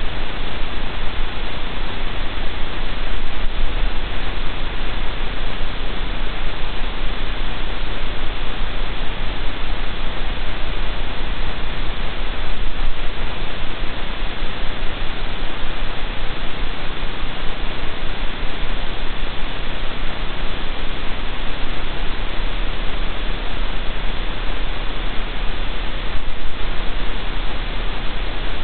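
Steady, even hiss of static from the den webcam's audio feed.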